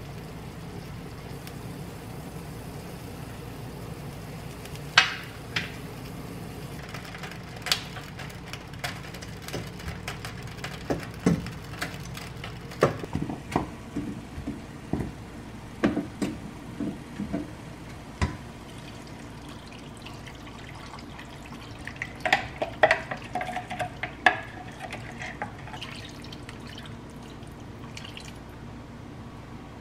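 Kitchen work at a sink: scattered clinks and knocks of dishware and utensils, with some running or pouring water, over a steady low hum.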